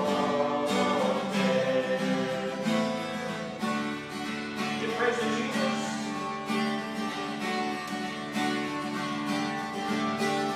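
Acoustic guitar being strummed, playing a tune.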